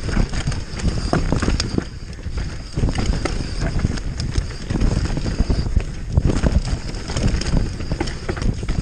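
Mountain bike rattling and clattering at speed down a rough dirt trail, tyres rumbling over the ground with frequent sharp knocks from the bike, and wind rushing over the camera microphone.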